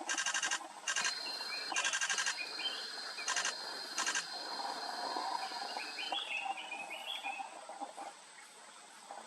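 Forest sound of birds and insects: five short, buzzy, rasping calls in the first four seconds and a few small chirps, over a steady high insect whine that stops about six seconds in.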